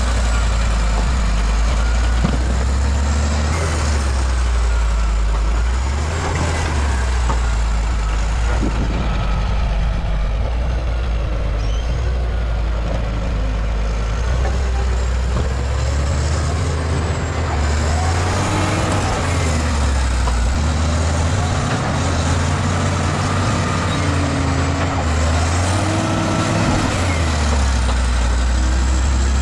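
Bulldozer's diesel engine working, its pitch rising and falling as the load changes, with a faint high wavering whine above it.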